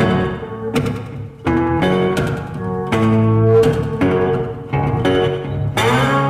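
Instrumental background music with sharply plucked guitar notes that ring and fade over a low bass line.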